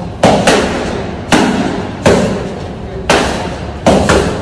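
Sharp smacks of strikes in a boxing pad drill, six in about four seconds at an uneven pace, each ringing on in a long echo off bare concrete walls.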